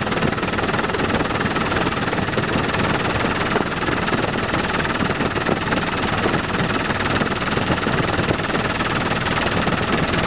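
Helicopter in flight heard from inside the cabin: steady engine and rotor noise with a constant high whine.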